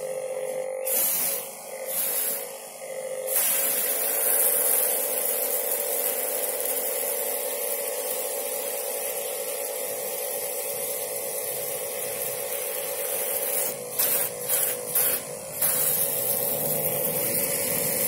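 Homemade pressure washer spraying water: the electric pump runs with a steady hum under the hiss of the jet from the spray gun. The jet stops and starts a few times in the first few seconds and again in quick short bursts near the end.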